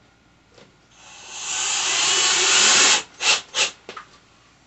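Power drill driving a screw into the bookcase panel. The run builds over about two seconds, then comes two short bursts and a faint third as the screw is snugged tight.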